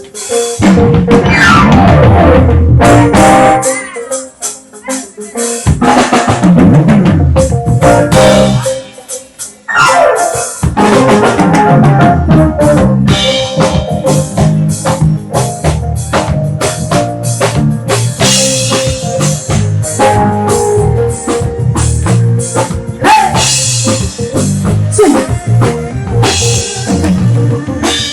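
Live band with drum kit playing at a sound check, breaking off twice in the first ten seconds and starting again, then playing on without a break.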